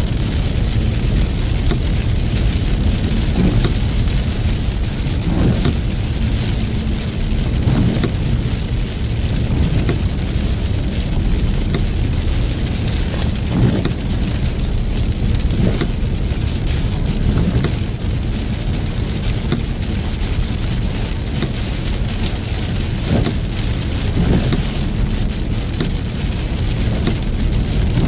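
Heavy rain pelting a moving car, with a steady low rumble of road and engine noise beneath and a dense scatter of sharp drop taps.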